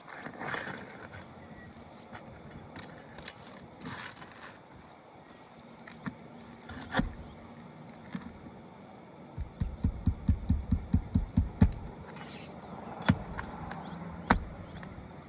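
Flat pry bar working under asphalt roof shingles to reach and pull the roofing nails: scattered scrapes and sharp clicks of metal on shingle and nail, with a quick run of about a dozen low knocks a little past the middle.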